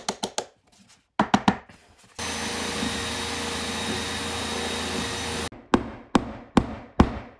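A few quick clicks, then three sharp knocks about a second in, then a corded electric drill running steadily for about three seconds as it bores into pine wall boards. It stops suddenly, and about two hammer taps a second follow, driving a small nail into a strip of wood trim.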